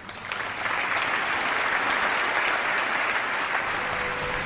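Large audience applauding, the clapping swelling over the first second, holding, then slowly easing off.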